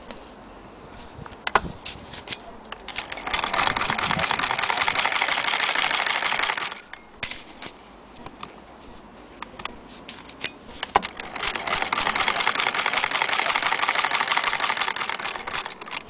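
Antique Bradbury hand-crank fiddle-base sewing machine stitching through denim: two runs of rapid, even clattering of a few seconds each, one starting about three seconds in and one about eleven seconds in, with a few separate clicks and knocks between them.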